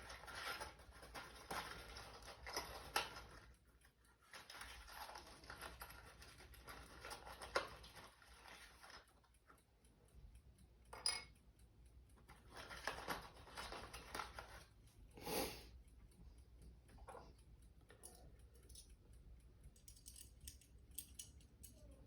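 Quiet rustling, scraping and small clicks of hands handling window-shade mounting hardware and the packet of screws, with a few louder handling noises scattered through.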